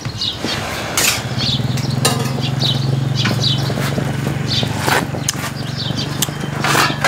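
An engine runs with a steady low hum, starting about a second in, with a few sharp clinks of a metal spoon as soup is sipped from it.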